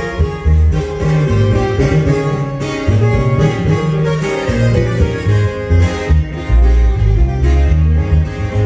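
Live band playing: acoustic guitars picked and strummed over an electric bass guitar.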